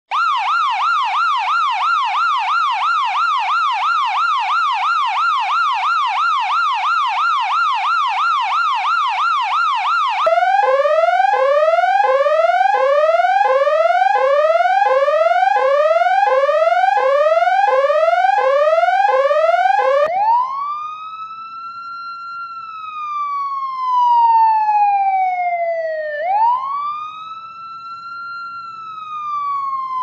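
Three electronic emergency sirens, about ten seconds each. First a US police yelp, sweeping up and down about three times a second. Then a Chinese police siren of rising sweeps that cut off and restart a little over once a second, a bit louder. Then a slow US ambulance wail, rising and falling over several seconds.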